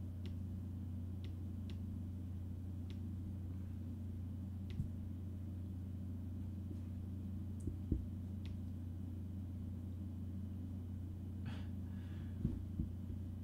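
Steady low hum with faint, scattered clicks from working at the computer, a couple of them a little louder about eight seconds in and near the end.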